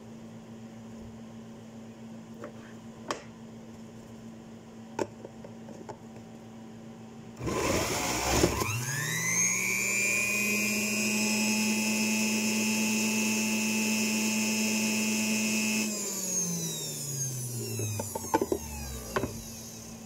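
Electric juicer motor switched on about seven and a half seconds in, spinning up to a steady whine as oranges are pressed into it. It runs for about eight seconds, then is switched off and winds down with a falling pitch. Light clicks and knocks of handling come before it starts and after it stops.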